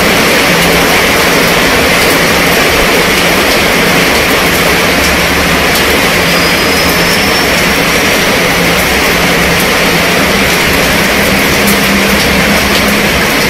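Heavy downpour falling on a fabric canopy tent overhead and splashing on wet pavement: a loud, steady hiss with scattered sharp taps of individual drops.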